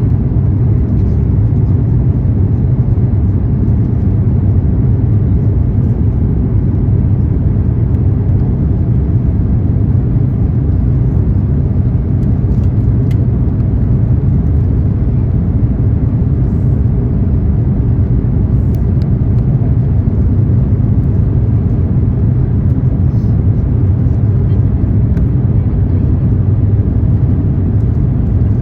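Airbus A350-900 cabin noise from inside the aircraft: a steady low rumble of its Rolls-Royce Trent XWB engines and airflow, with a few faint light rattles.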